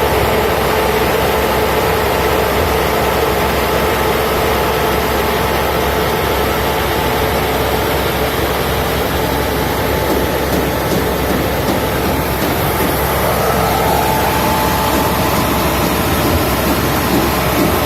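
Machinery running steadily, a constant loud drone with a steady whine over it; the whine rises a little about two-thirds of the way through.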